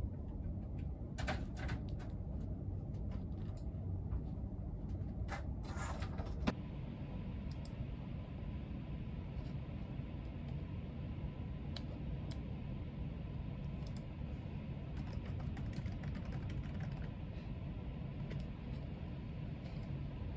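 Office desk work: scattered light clicks and taps from a computer keyboard, a mouse and papers being handled, most of them in the first six and a half seconds. Beneath them runs a steady low room hum.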